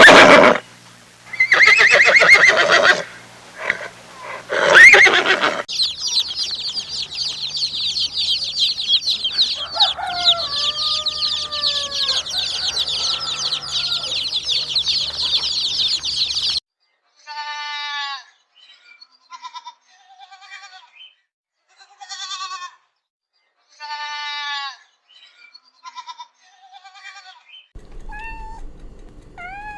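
Young farm animals calling in turn. First come a few loud bleats, then about ten seconds of dense high peeping from many chicks, then short cries spaced apart in small groups.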